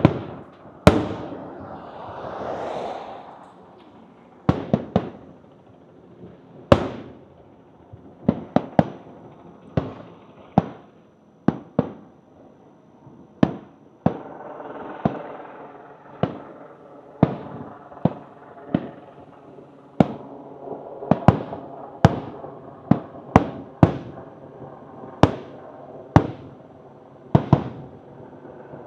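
Aerial fireworks shells bursting in an irregular series of sharp bangs, each trailing off in an echo, with a hissing, crackling swell about two to three seconds in and a fainter one around fifteen seconds.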